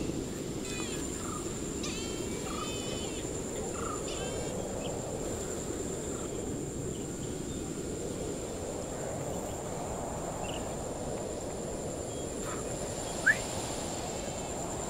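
Rural field ambience: a steady high-pitched insect drone over a low rushing background, with bird chirps in the first few seconds. One short, sharp rising bird call about thirteen seconds in is the loudest sound.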